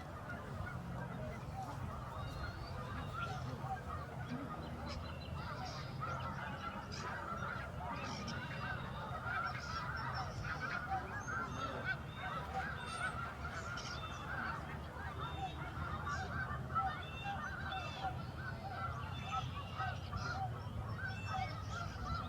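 Large flock of migrating wild geese calling: a dense, unbroken chorus of overlapping honks.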